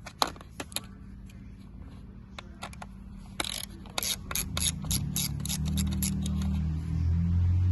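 A ratcheting driver clicking in quick runs as T10 Torx screws holding a steering-wheel cruise control switch are backed out, with a few single clicks first. A low hum builds in the second half and is loudest near the end.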